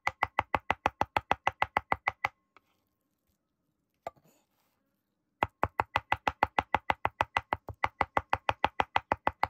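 Chef's knife rapidly mincing raw salmon on a bamboo cutting board: quick, even chops about six a second. The chopping stops for about three seconds, with a single knock in the pause, then starts again.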